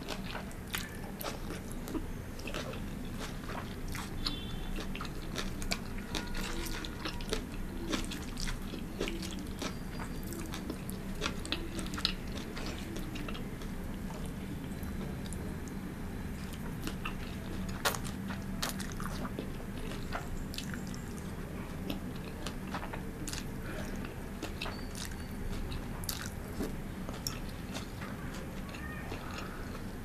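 Close-miked eating: chewing and crunching mouthfuls of pan-fried noodles and vegetables, a steady run of wet, crackly mouth clicks and bites.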